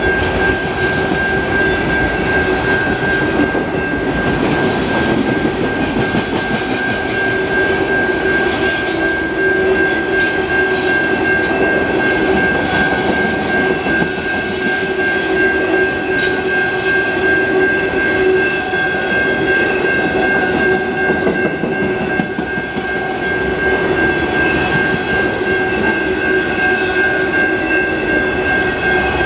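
Freight train's autorack cars rolling past: a steady rumble of steel wheels on rail with a constant high ringing tone held throughout, and a few clicks as the wheels cross rail joints.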